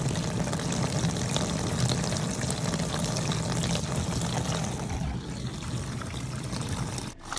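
LG LDF7774ST dishwasher running its wash cycle: water spraying and splashing inside the tub over the steady hum of the circulation pump. The sound drops out briefly near the end.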